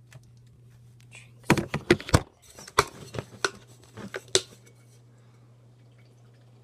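Handling noise on a phone's microphone: a burst of sharp clicks and knocks, starting about a second and a half in and lasting about three seconds, over a steady low hum.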